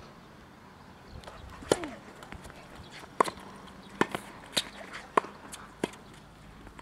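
Tennis ball struck by rackets and bouncing on a hard court in a quick rally: about six sharp pops, the last five coming under a second apart, with lighter ticks of footsteps between them.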